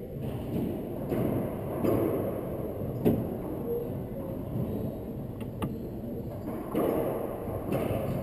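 A racquetball smacked hard once about three seconds in, a sharp echoing crack, followed a couple of seconds later by two faint ticks, over the steady low hum of the enclosed court.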